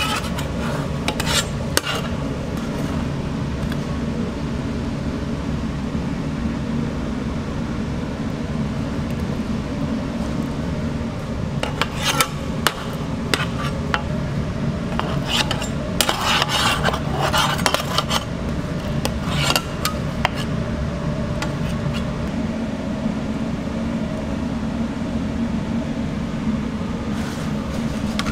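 A metal spatula scraping and clinking against a large black pizza pan in scattered bursts as pizza slices are lifted out, busiest about halfway through. A steady low kitchen hum runs underneath.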